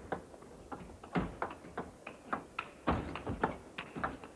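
Table tennis ball in a rally: sharp clicks of the celluloid ball off the rackets and bouncing on the table, coming at about four a second.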